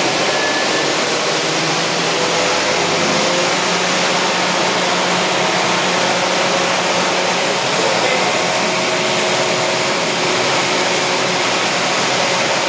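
Wind tunnel fan blowing air to test a homemade wind turbine: a loud, steady rush of air that does not change.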